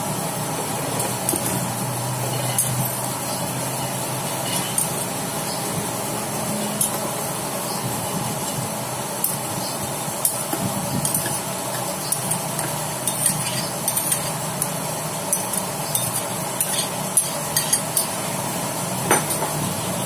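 Soaked chana dal being tipped from a bowl into a stainless-steel mixer-grinder jar, and a steel spoon scraping and clinking against the jar and bowl. Scattered sharp clinks grow thicker near the end, over a steady background hiss.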